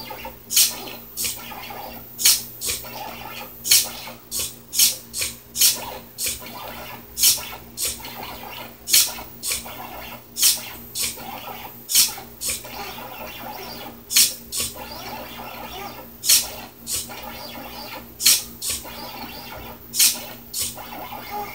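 4xiDraw pen plotter at work: short sharp buzzes, often in pairs about half a second apart, as its SG90 micro servo lifts and lowers the pen between strokes. Under them runs a steady hum from the stepper motors that move the carriage.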